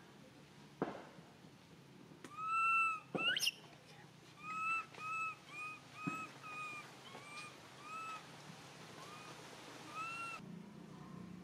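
Baby long-tailed macaque giving a run of short, high-pitched coos, each rising and falling, about a dozen in a row with a sharper rising squeal early on, the calls of a frightened baby seeking its mother. A sharp click comes about a second in.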